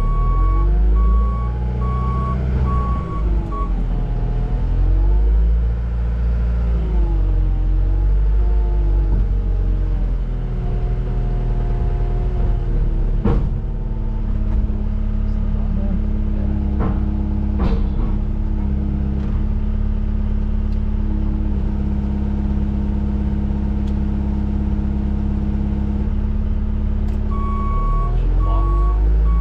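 A 914 wheel loader's diesel engine running under load. Its revs rise and fall for the first several seconds, then hold steady. Its reversing alarm beeps at the start and again near the end.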